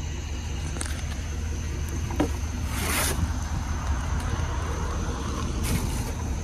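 A lawnmower's mesh grass-catcher bag being carried and lifted: a few brief rustles and knocks of its fabric and metal frame, the loudest about three seconds in, over a steady low rumble and a faint steady high whine.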